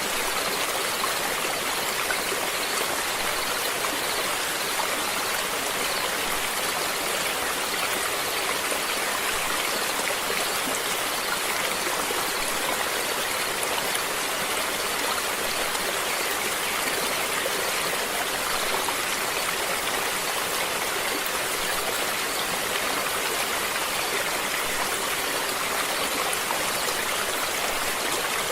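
Running water flowing steadily, an even rushing hiss with no breaks or changes.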